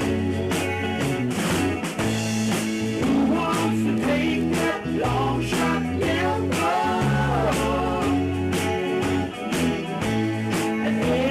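A rock band playing live at rehearsal: electric guitar over a moving bass line and a steady drum beat, with a wavering melody line, perhaps a voice, in the middle.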